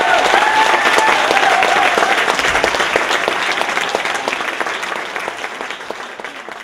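Audience applauding: dense clapping that dies away toward the end. The last held note of the music fades out under it in the first couple of seconds.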